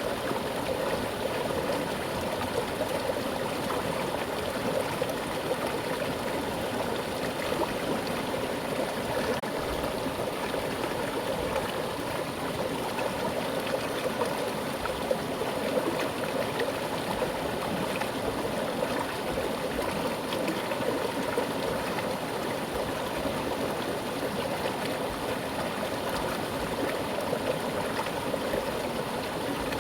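Mountain river rushing steadily over rocks with a strong current, a constant even babble of water with small gurgles and trickles.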